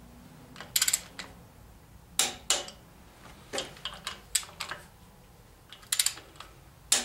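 Sharp metallic clicks and clinks of a socket and torque wrench on the water pump bolts of a Chevy 350 small-block, with short runs of quick ratchet clicks, as the bolts are tightened to 30 foot-pounds.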